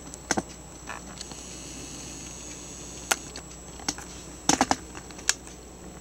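Keys of a Sharp PA-3000 II electronic typewriter clicking at an irregular pace: single sharp clicks spread apart, with a quick run of three about four and a half seconds in.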